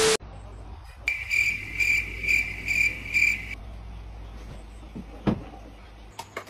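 A short burst of TV static with a beep, then about six evenly spaced high, cricket-like chirps over some two and a half seconds, and a single knock about five seconds in.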